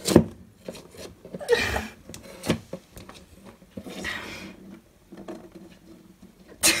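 A few sharp knocks and short scrapes on a hardwood floor: a Russian tortoise's claws and shell scraping and bumping against the wood as it pushes into a corner under the trim.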